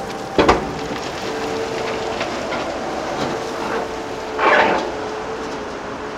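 Earthmoving machinery at work: a steady engine hum under a noisy haze, with a short sharp double knock about half a second in and a longer, louder burst of noise about four and a half seconds in.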